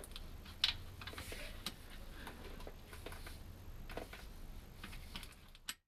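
A few separate clicks and light metallic ticks, roughly a second apart, from a hand tool tightening a freshly refilled oil filler plug. The sound cuts off just before the end.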